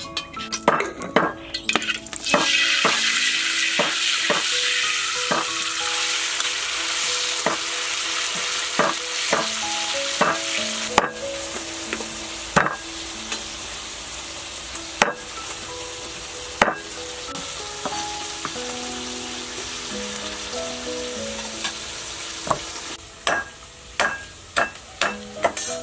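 Food sizzling in hot oil in a wok. The sizzle starts suddenly about two seconds in and slowly dies down, while a metal ladle knocks and scrapes against the wok now and then. Soft background music plays underneath.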